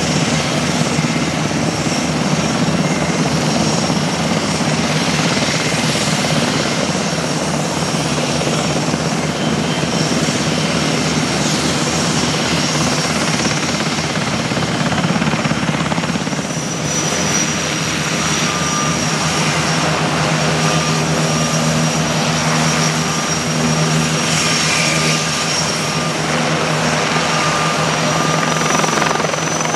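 Military turbine helicopter running close by: a rapid beat from the rotor blades over a steady high turbine whine, which climbs slightly near the end.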